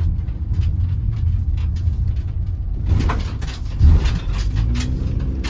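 Low rumble of a car driving, heard from inside the cabin, with scattered light clicks and one louder thump a little before four seconds in.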